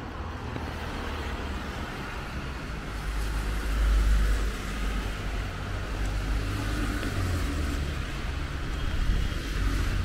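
Road traffic on a wet street: cars passing with tyre hiss, over a low wind rumble on the microphone. It swells about four seconds in and again near the end.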